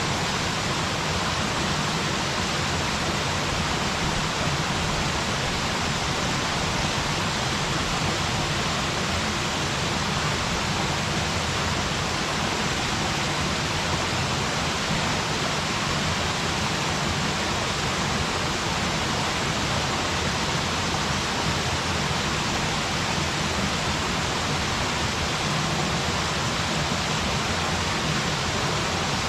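Waterfall: water falling steadily and splashing into its pool, a constant even rush with no changes.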